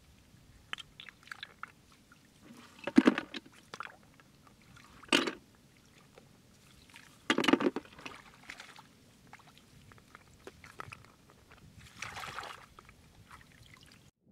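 Hands splashing and sloshing in shallow water, in short bursts: three louder splashes about three, five and seven and a half seconds in and a softer one near twelve seconds, with small clicks and drips between.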